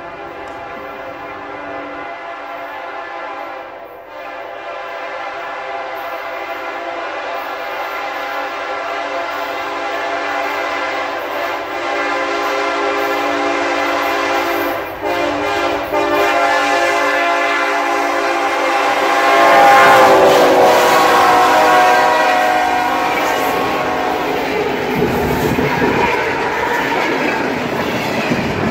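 Freight train led by diesel locomotives (SD70ACe, ES44AC and AC4400) running fast, its air horn sounding long blasts that grow louder as it approaches. About twenty seconds in, the horn chord drops in pitch as the locomotives pass. Then the engines and a long string of gondola cars rush by with wheels clattering over the rail joints.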